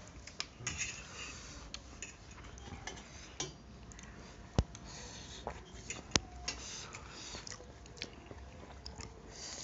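Forks and spoons clicking and scraping on metal plates during a meal. The loudest are two sharp clinks, about four and a half and six seconds in, with soft chewing sounds between.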